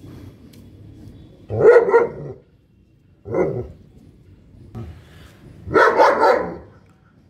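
A dog barking three times, about two seconds apart, the last bark the longest and loudest.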